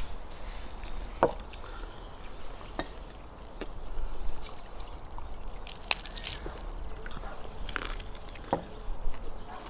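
Eating sounds at a table: a handful of scattered light clicks and knocks from a knife and plates, with meat being pulled apart by hand.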